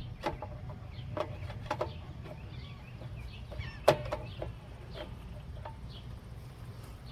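Scattered light clicks and knocks of mower parts being handled, with one louder knock about four seconds in. Birds chirp faintly and a steady low hum runs underneath.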